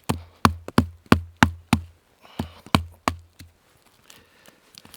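Knife being batoned through a pine limb: about ten sharp wooden knocks, roughly three a second, as the spine is struck to split the wood, stopping about three and a half seconds in.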